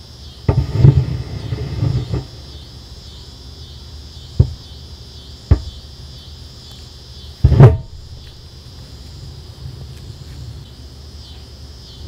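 18650 lithium-ion laptop cells rupturing in thermal runaway inside a closed aluminum fire-containment case. There is a burst of several quick pops about half a second in, lasting nearly two seconds, then two single sharp knocks around the middle, and another short loud burst about two thirds of the way through.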